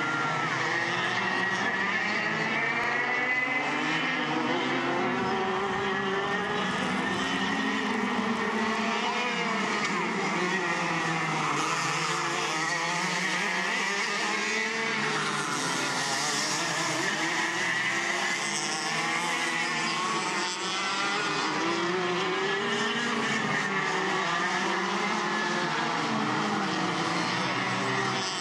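Racing go-kart engines revving up and down as the karts lap the track, two or more engines overlapping, their pitch rising and falling continuously through the corners and straights.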